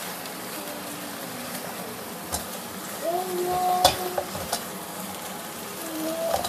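Young leafy greens stir-frying in oil in a nonstick wok: a steady sizzle, with a silicone spatula scraping and tossing the greens and tapping the pan a couple of times.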